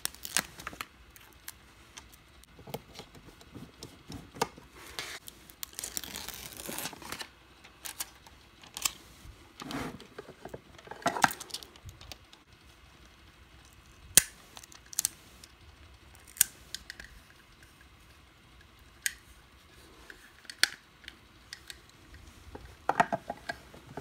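Small paper stickers being peeled from their backing sheet with a rustling, scraping sound, between scattered sharp clicks and taps of fingernails and fingers on a miniature plastic Rilakkuma toy refrigerator as the stickers are pressed on.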